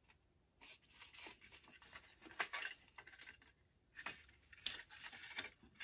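Cardstock being handled and pressed into shape by hand: faint, irregular rubbing and scraping of paper against paper, with a short lull about halfway through.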